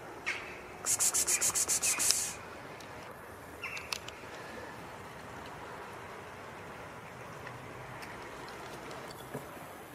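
A fast run of about ten sharp rustling scrapes, some eight a second, lasting about a second and a half, then a brief scrape a couple of seconds later, over a steady background hiss.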